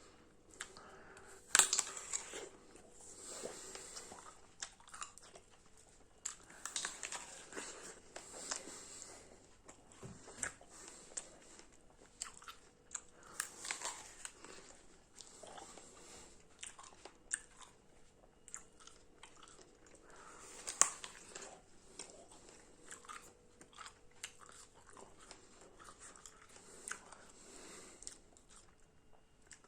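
A person biting and chewing crunchy food close to the microphone: repeated irregular crunches, with the loudest bites about a second and a half in and again about two-thirds of the way through.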